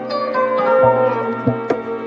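Background music: a plucked-string melody over a low bass, with a light beat of sharp hits a little under a second apart.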